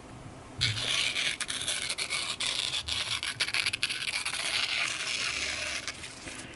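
Sharp S90V knife edge slicing steadily through phone book paper, a continuous dry scratchy rub with small ticks, starting about half a second in and lasting about five seconds. The slice checks the edge for micro-chipping after hardwood cutting.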